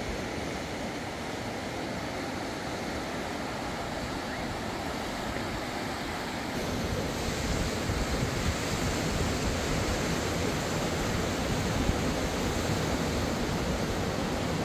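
Steady rushing of a fast river running over rapids, becoming louder and fuller about six and a half seconds in.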